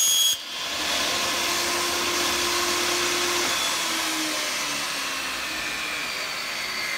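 Benchtop table saw running with no load. The high whine of its blade cutting through vinyl J-channel stops abruptly just after the start, leaving the steady noise of the motor and spinning blade.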